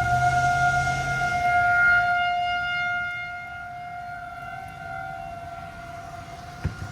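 Outdoor civil-defense warning siren sounding a steady tone for a tornado warning, louder for the first couple of seconds and then fading. A single sharp knock comes near the end.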